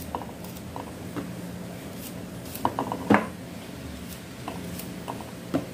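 Small knife cutting garlic cloves over a wooden bowl: scattered light clicks and taps, with a small cluster about three seconds in and another near the end. A steady low hum runs underneath.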